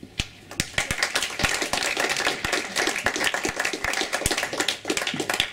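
Audience applauding: a few separate claps at first, quickly filling out into steady applause that thins out near the end.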